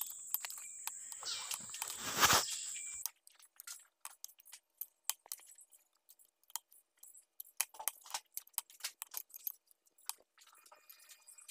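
Metal clinks and taps of a steel hand tool working on a differential's pinion bearing, with one louder knock about two seconds in. After about three seconds the sound drops away sharply, leaving scattered small clicks.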